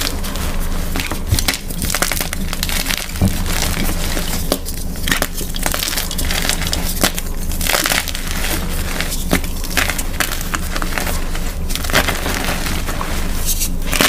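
Hands crushing and crumbling blocks of plain gym chalk (magnesium carbonate), an irregular run of crisp crunches and crackles as the blocks break and grind into powder.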